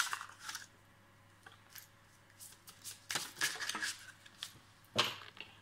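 Tarot cards being shuffled and handled, in short bursts of card noise: a few near the start, a longer run about three seconds in, and a sharp one about five seconds in.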